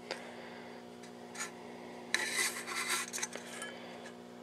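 Rubbing and scraping handling noises in a few short bursts, the longest about two seconds in and lasting over a second, over a steady low electrical hum.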